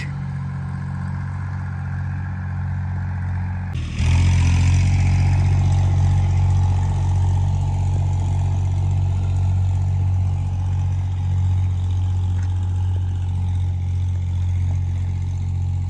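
Tractor engine running with a steady low drone, which gets abruptly louder about four seconds in and stays at that level.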